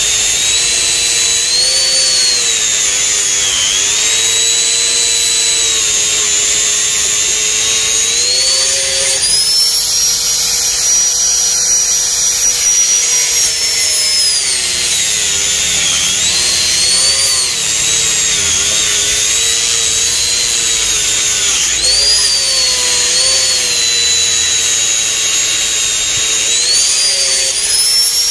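Handheld electric angle grinder running continuously as its disc cuts along the edges of a fiberglass loster mold. Its high whine sags in pitch several times as the disc bites into the material, and climbs back when it runs freer.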